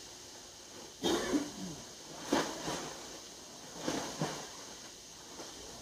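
A cloth tablecloth being shaken out and flapped down over a table: three rustling whooshes, roughly a second or more apart.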